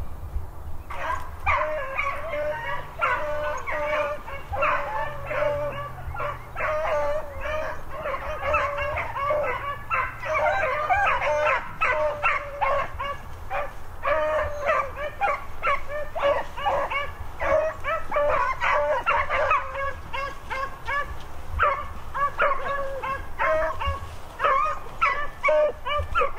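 A pack of beagles baying in chorus, many short overlapping bays and yelps one after another without a break: the dogs are in full cry running a cottontail's scent trail.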